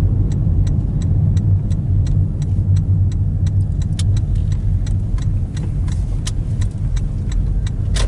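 Car running on the road, heard from inside the cabin as a steady low rumble of engine and tyres, with an even ticking about three times a second.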